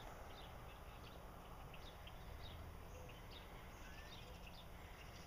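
Faint woodland ambience: many short, high bird chirps scattered throughout over a low steady rumble.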